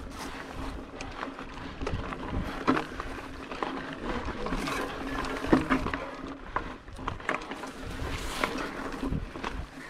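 Mountain bike riding over a dirt singletrack: knobbly tyres rolling on loose ground, with frequent knocks and rattles from the bike over bumps, and wind rumble on the microphone.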